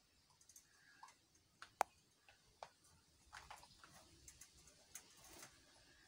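Faint, scattered clicks and light taps of an Indian ringneck parrot clambering on the wire mesh of its cage, with one sharp click about two seconds in.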